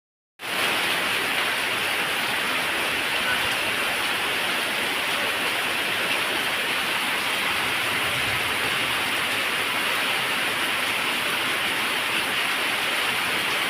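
Heavy rain pouring down in a dense, steady hiss that cuts in abruptly about half a second in.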